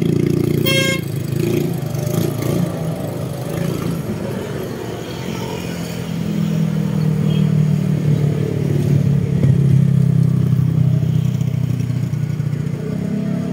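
Motor vehicle engine running close by, a low hum that swells in the middle and eases near the end, with a brief high beep about a second in.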